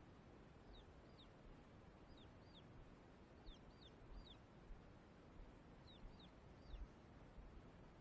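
Faint, short, high peeps from young Silkie chicks, about a dozen of them in clusters of two or three, each a quick downward chirp, against near-silence.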